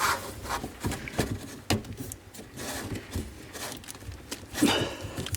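Irregular light knocks, taps and clicks of plastic and metal parts being handled and fitted onto a dishwasher.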